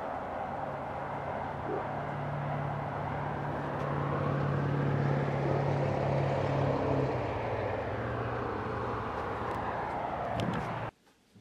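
Steady outdoor rumble with a low engine-like hum, swelling a little toward the middle; it cuts off abruptly near the end.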